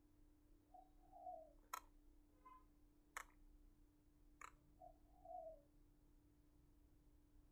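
Quiet room with a steady low hum and three sharp computer-mouse clicks spaced over about three seconds as shape points are edited. A faint cooing call sounds twice in the background.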